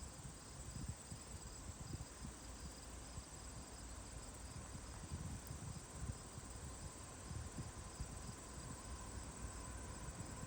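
Insects chirping steadily in a fast, even pulse, with a faint, uneven low rumble underneath.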